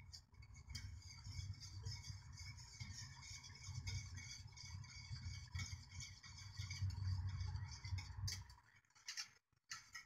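Wire whisk stirring a thin liquid pudding mixture in a metal saucepan: faint steady ticking, clinking and scraping of the wires against the pan, with a few sharper clicks and a brief pause near the end.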